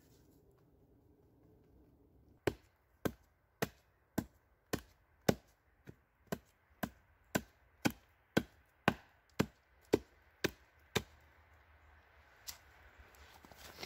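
Hatchet chopping into a piece of split wood held on a stump: about seventeen sharp, even strikes, roughly two a second, starting a couple of seconds in.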